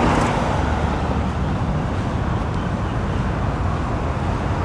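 Steady city road-traffic noise, an even rumble of passing vehicles.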